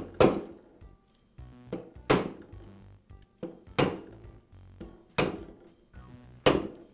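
Mallet striking a socket set on a router's armature shaft, driving the shaft out of its ball bearing, which is held in a bearing separator over vise jaws. Five sharp strikes, each with a short metallic ring, coming a little closer together toward the end.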